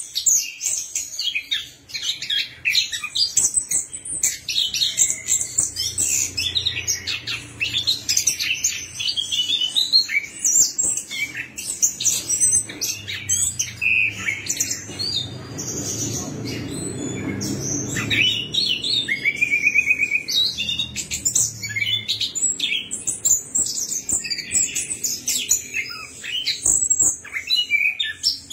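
Caged chestnut-capped thrush (anis kembang) singing a continuous, rapid song of quick, varied high notes.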